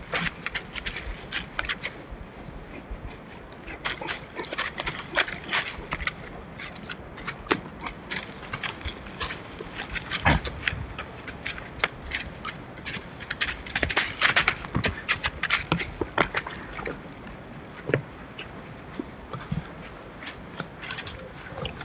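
Deer hooves stepping and shuffling on dry leaf litter and twigs, giving irregular crackling and rustling with a duller thud about ten seconds in.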